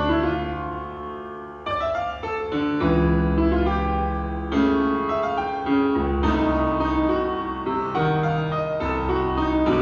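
Music: piano-led instrumental introduction of a slow song, chords changing every second or so over a steady bass.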